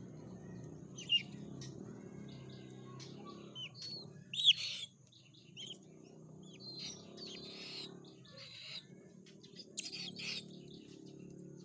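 53-day-old white-bellied sea eagle chick giving high, chirping calls in several short bouts while it is hand-fed meat, the loudest call a quick upward squeal about four and a half seconds in.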